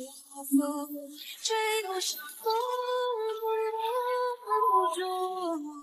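A woman singing a slow, gentle melody in long held notes: a song laid under the picture.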